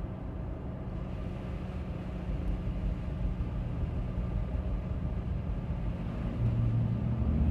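A car driving: a steady low rumble of engine and road noise, growing a little louder near the end.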